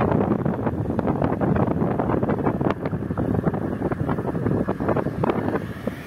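Wind rushing over the microphone of a moving vehicle: a dense, steady rumble broken by frequent crackles.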